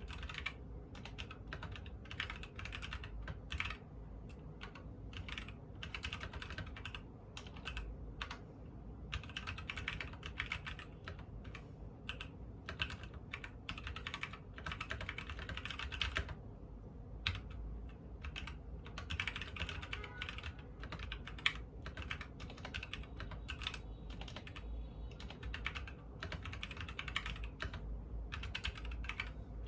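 Fast typing on a custom mechanical keyboard with SP-Star x Kon MOMO switches on an aluminium plate in a KBD low-profile case: a dense stream of keystroke clacks, thinning briefly a couple of times.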